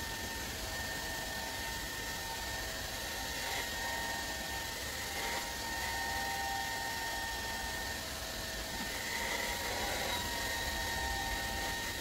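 Handheld hair dryer running steadily: a rush of blown air with a high, steady motor whine.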